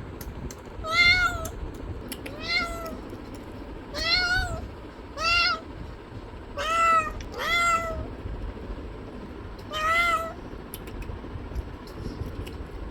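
A domestic cat meowing repeatedly: seven short meows, each rising then falling in pitch, about a second apart with a longer pause before the last.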